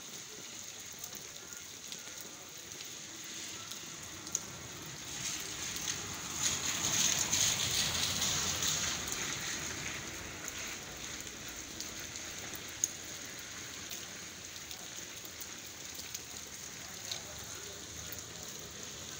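Steady rain pattering onto a waterlogged street, growing louder for several seconds in the middle, with a couple of sharp ticks of drops.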